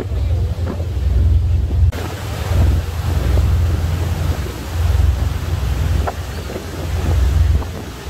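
Strong wind buffeting the microphone aboard a ferry at sea, surging and easing in gusts over the rush of water and the boat's running noise.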